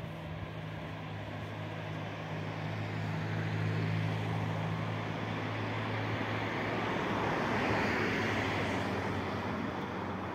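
A steady low engine hum, fading out about five seconds in, gives way to the rushing noise of a passing vehicle that swells to a peak near eight seconds and then eases off.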